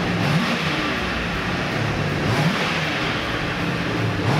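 1980 Chevrolet Corvette's V8 engine running, its pitch rising briefly with short revs three times.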